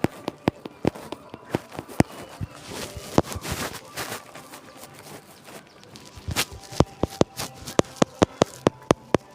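Irregular sharp cracks and pops over a faint background hiss, coming faster and closer together toward the end.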